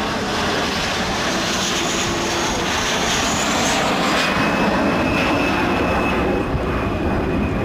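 White Knight Two's four Pratt & Whitney Canada PW308A turbofan engines running loud as the aircraft makes a low pass. A high jet whine drops to a lower pitch about four seconds in.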